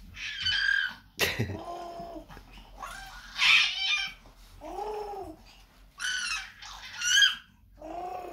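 Baby babbling: a run of short cooing and squealing calls, many rising then falling in pitch, the loudest squeals about three and a half and seven seconds in. A single sharp knock about a second in.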